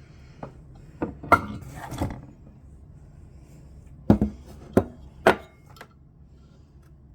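Knocks and clatter of a Wheelock 31-115 fire alarm horn being handled and set down: a cluster of knocks with some rustling about a second in, then three sharp knocks between four and five and a half seconds in.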